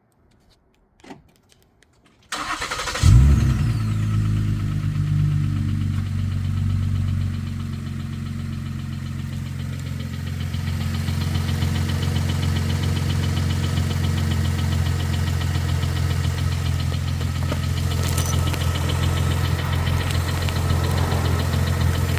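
A 2013 Ford Flex's 3.5-litre twin-turbo EcoBoost V6 is cranked and catches about three seconds in. It flares briefly, then settles into a steady idle carrying the knocking noise that the owner takes for engine knock.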